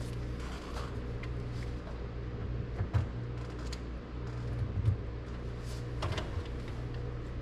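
A few light knocks and clicks as a car's power antenna assembly and its wiring connectors are handled and fitted inside the trunk, the loudest about three and five seconds in, over a steady low hum.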